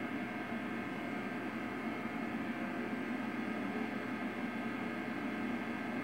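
Steady low hum with hiss and no distinct sound event: background recording noise.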